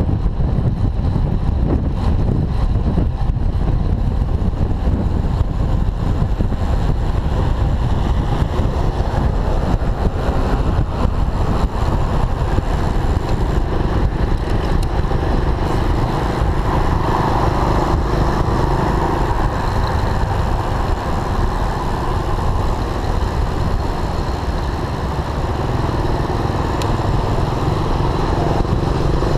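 Steady wind noise on a handlebar camera's microphone from a moving bicycle, with motor scooter engines running close by. The scooter sound grows louder for a few seconds a little past halfway through.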